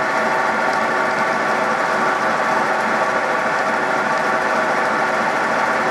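Milling machine end mill cutting hard steel on a brake caliper mount: a steady cutting noise with several fixed ringing tones through it, running without a break.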